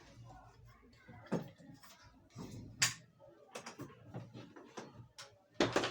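Lamp parts being handled and fitted by hand: a handful of irregular sharp clicks and knocks, the loudest about halfway through and a quick cluster near the end.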